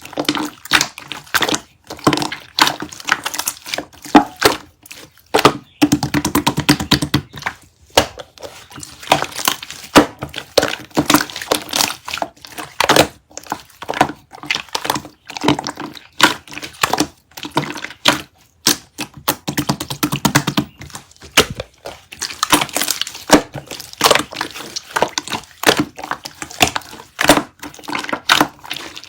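Slime being squeezed, pressed and poked by hand, making continual sticky clicks, pops and crackles, with a quick run of rapid crackling about six seconds in.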